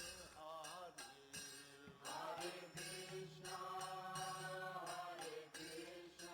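Soft background music: a sung devotional chant over a steady drone.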